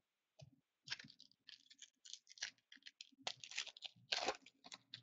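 Trading cards handled on a table: irregular crisp rustling, scraping and clicking as cards are picked up, slid and shuffled, busiest near the end.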